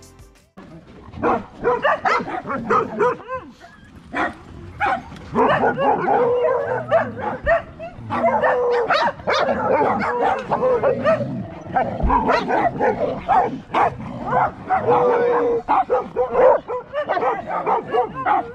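A pack of dogs barking, yipping and whining over one another, starting about a second in. The dogs are excited by a person arriving at their gate.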